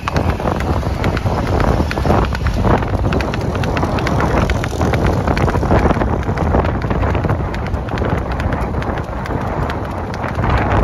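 A horse's hooves clip-clopping rapidly on an asphalt road as the mare moves at a quick gait under a rider, with wind rumbling on the microphone.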